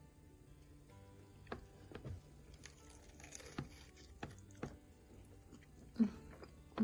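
Soft, scattered clicks and taps of someone eating and handling fried banana fritters, over quiet background music.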